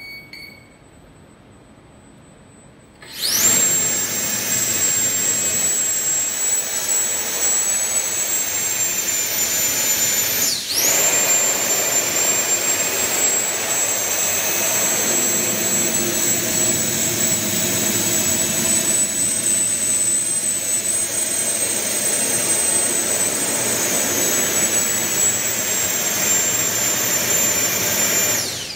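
The robot's pair of electric ducted-fan thrusters spin up about three seconds in to a loud, steady, high-pitched whine with a rush of air as they push the robot to balance while it steps over the gap. The whine drops out for a moment and spins straight back up about ten seconds in, and it winds down right at the end.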